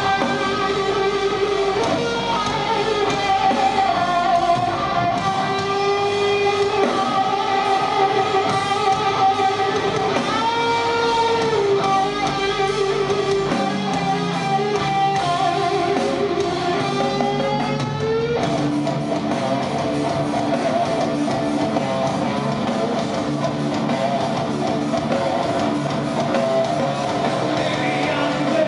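Live rock band performance led by electric guitar playing held melodic notes over bass and drums; the guitar part changes about two-thirds of the way in.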